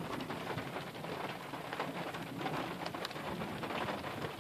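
Rain pattering: a steady hiss dotted with many small ticks of drops.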